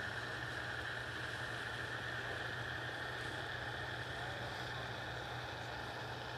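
Paramotor engine and propeller droning steadily overhead in flight.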